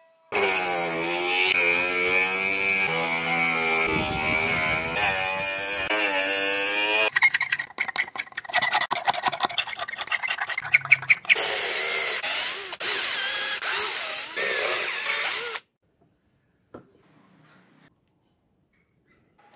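A small power tool runs for several seconds, its pitch wavering. Then a blade is drawn hard along the edge of a glued PVC block, scraping it clean with fast rasping strokes. A steadier rasp follows and cuts off suddenly.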